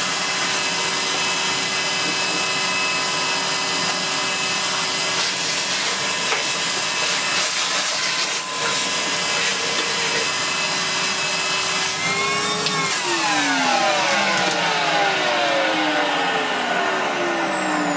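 Numatic Henry vacuum cleaner's motor running steadily with a whine, then switched off about two-thirds of the way in and winding down, its pitch falling away.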